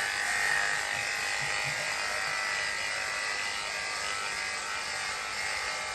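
Electric dog grooming clippers running steadily, drawn through a dog's coat during a rough cut.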